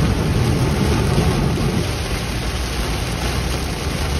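Heavy downpour falling on a moving car, a steady even rush with a low rumble underneath.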